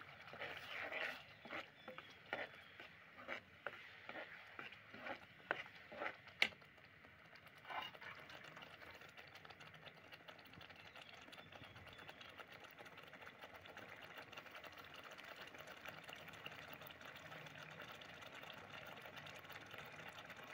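Slotted steel spatula scraping and knocking against a metal kadai as thick rajma masala gravy is stirred, with a sharp knock about six seconds in. After about eight seconds the stirring stops and the gravy bubbles and sizzles steadily as it cooks down.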